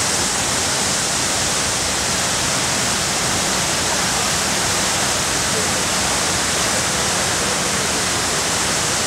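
A man-made waterfall at the 9/11 Memorial reflecting pool: sheets of water pour down the stone walls into the pool, making a steady, even rush.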